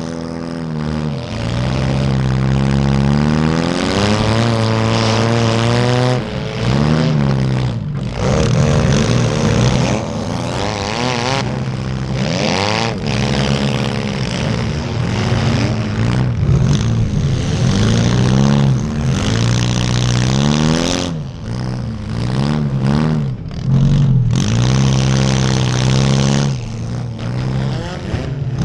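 Compact demolition derby car's engine revving up and down again and again as the car accelerates and backs off. The sound breaks off briefly a few times, once about eight seconds in and several times later on.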